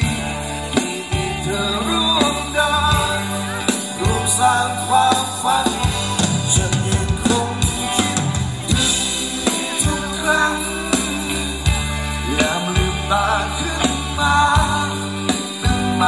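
Live band playing Thai ramwong dance music through a PA system: drum kit with bass drum and snare keeping a steady beat under a bass line, with a singer's melody over it.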